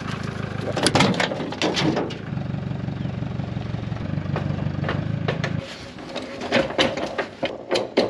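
Toyota Hilux ute's engine running steadily, then switched off about five and a half seconds in. Sharp knocks and clunks about a second in, and scattered clanks after the engine stops.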